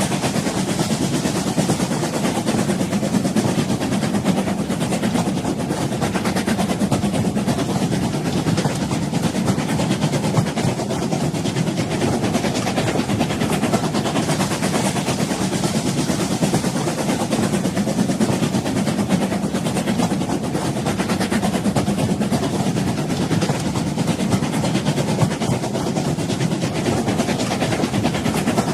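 Old train running, a steady, unbroken rumble of the train on the rails.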